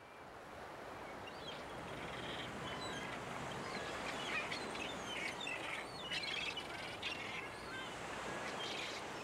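Seabirds calling in many short chirps over a steady rushing background, the whole fading in at the start.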